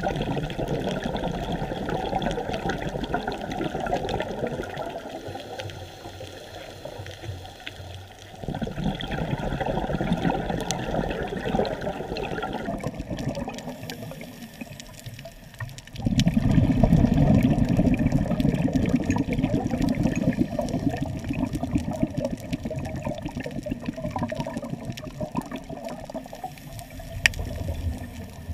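Underwater water noise picked up on a scuba dive: a continuous rushing that shifts a little in tone along the way and gets clearly louder and lower about sixteen seconds in.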